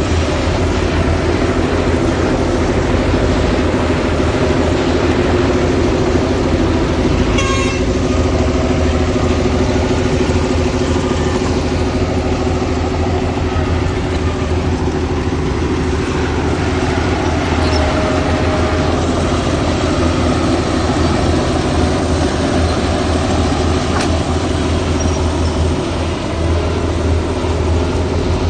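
Heavy diesel engines of earthmoving machinery (dump trucks and a bulldozer) running steadily under work, with a deep rumble and a brief clatter about a third of the way in.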